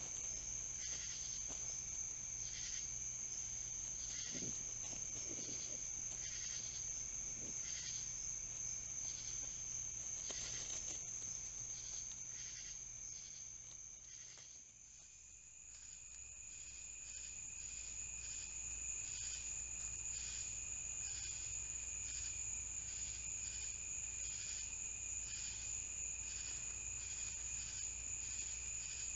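Crickets singing in a night chorus: a steady high trill with regular pulsed chirps. The chorus fades briefly about halfway, then resumes a little higher in pitch.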